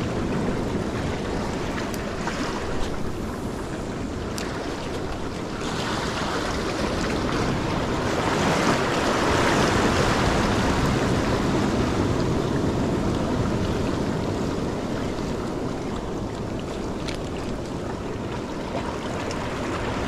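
Ocean surf washing over and around shoreline rocks, with wind on the microphone; the wash swells loudest about halfway through and then eases off.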